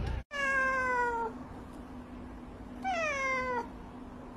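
Orange cat meowing twice: two long meows that each fall in pitch, the first about a second long and the second shorter, coming about two and a half seconds later.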